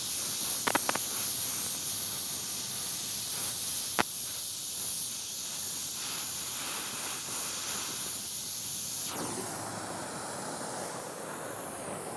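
Oxyacetylene welding torch flame hissing steadily as it heats thin steel plate to tack-weld a butt joint, with a few sharp clicks. The hiss drops off from about nine seconds in.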